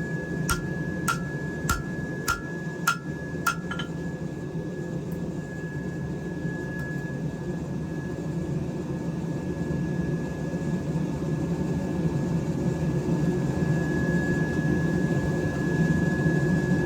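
Hand hammer tapping a hot steel knife blade on an anvil: six light, evenly spaced blows, a little under two a second, each with a short ring, then the hammering stops. A steady rushing hum runs underneath and grows louder toward the end.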